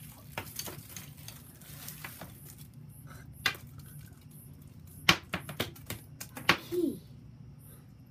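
Clicks, taps and light clatter of small plastic objects being handled in the hands, with a cluster of sharper clicks past the middle and a brief squeak near the end.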